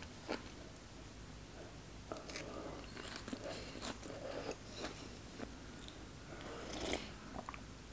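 A person eating hot pot soup close to the microphone: soft, irregular chewing and mouth sounds with faint clicks, and a sip of broth from a spoon near the end.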